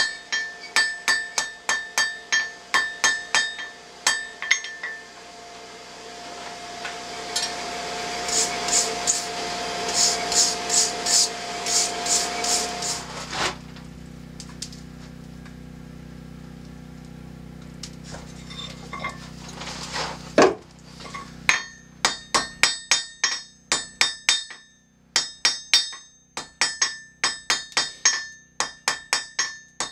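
Blacksmith's hand hammer striking a hot steel bar on an anvil in rapid, ringing blows, with a pause in the middle of the stretch where only a steady low hum is heard. The hammering starts again about two-thirds of the way through.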